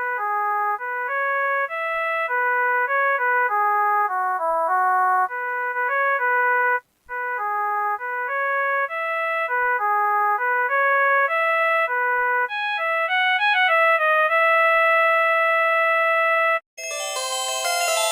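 MediaTek phone ringtone: a synthesized melody of clear single notes that plays through twice with a short break about seven seconds in, ending with a quick run and a long held note. About a second and a half before the end it cuts off and a different, brighter ringtone with fuller chords begins.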